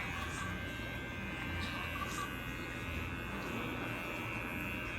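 Electric hair clipper buzzing steadily as it shaves a baby's head bald.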